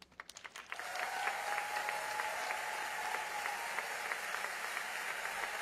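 Arena crowd applauding at the end of a rhythmic gymnastics ribbon routine: a few sharp claps that swell within the first second into full, dense applause, with a long steady note held over it for a couple of seconds.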